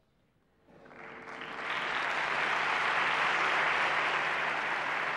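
Audience applauding, starting about a second in and swelling to a steady level.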